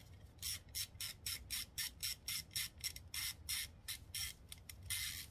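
Quarter-inch ratchet clicking in short, quick strokes, about three or four a second, as a 10 mm bolt on top of the starter motor is backed out; one slightly longer stroke comes near the end.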